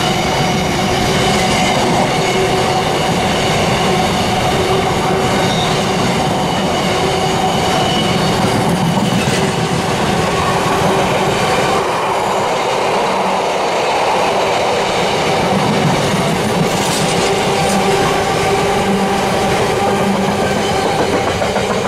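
Long freight train passing through the station at speed, its wagon wheels rumbling and clattering over the rail joints, with steady ringing tones from the wheels on the rails. Loud and unbroken for over twenty seconds.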